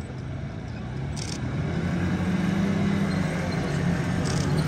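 Low, steady motor hum of the small P-3C replica vehicles taxiing, growing louder about a second and a half in, with a few faint clicks.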